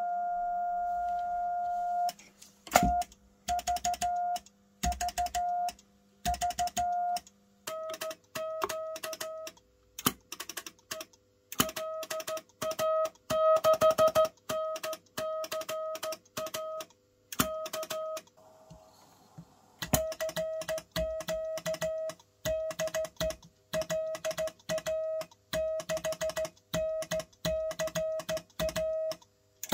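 Morse code (CW) sidetone: a single mid-pitched beep held steady for about two seconds, then keyed by hand into dots and dashes, each with a sharp click as it starts. A brief patch of hiss comes about two-thirds of the way through.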